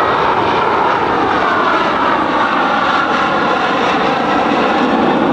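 Aermacchi AMX jet's Rolls-Royce Spey turbofan engine as the jet flies past overhead: steady, loud jet noise with a faint whine that drifts slowly in pitch.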